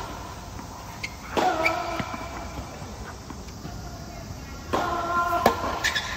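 Tennis rally: sharp pops of racket strings striking the ball, a few seconds apart and coming quicker near the end, with high squeals of tennis shoes skidding on the court about a second and a half in and again near five seconds.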